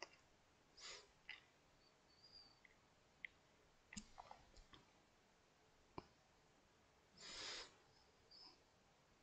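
Mostly near silence with a few faint taps and short scratches of a mechanical pencil marking dots on graph paper, and a brief rustle of a hand moving over the paper twice.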